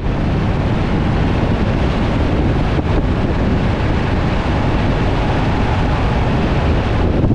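Truck travelling at road speed: a steady low rumble, with wind buffeting the microphone.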